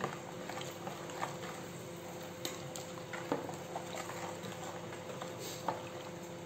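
Metal spoon stirring homemade liquid laundry soap in a plastic bowl: quiet swishing with a few faint, scattered clicks of the spoon against the bowl, over a faint steady hum.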